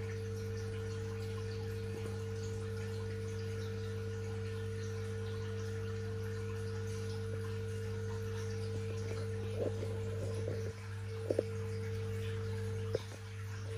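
Steady electric hum of aquarium equipment such as a filter pump, with a faint trickle of water beneath it. A few short clicks and knocks come in the last few seconds.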